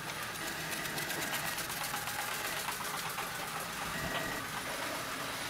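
ILIFE V7S Pro robot vacuum-mop running in mopping mode with its vacuum motor off, dragging its mop pad across a laminate floor: a steady mechanical whir with fine rapid clicking.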